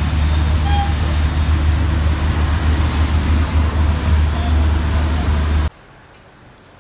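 Small auto-rickshaw engine running, with road noise, heard from inside the open cab; it cuts off suddenly near the end, leaving a faint hiss.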